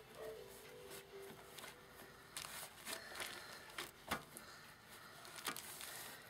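Faint rustling of cloth journal pages with lace trim being handled and smoothed by hand, with an irregular scatter of brief soft scuffs and taps.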